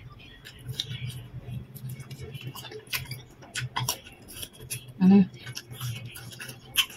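Crisp raw fruit slices being bitten and chewed close to the microphone: irregular crunching clicks throughout, with a short loud hum-like voiced sound from the eater about five seconds in.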